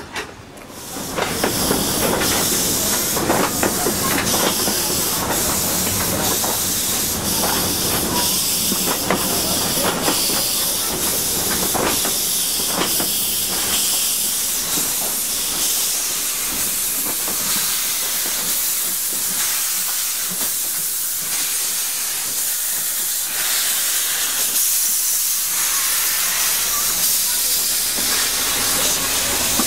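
ABT rack steam locomotive venting steam in a loud, steady hiss that starts about a second in, as the locomotive moves slowly past in thick clouds of steam.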